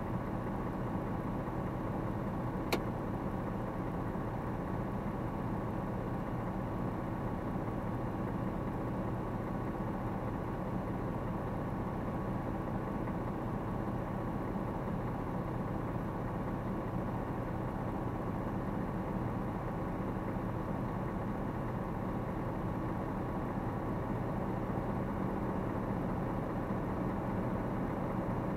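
A stationary vehicle's engine idling steadily, heard from inside the cab, with one sharp click about three seconds in.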